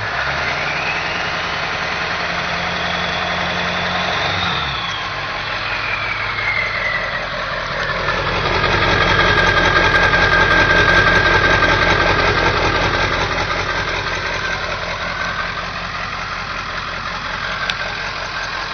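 Straight-piped 7.3L Power Stroke turbo diesel V8 of a 1997 Ford F-250, with muffler and catalytic converter removed, revved up twice from idle. Each rev brings a turbo whistle that climbs and then falls away as the engine drops back to idle.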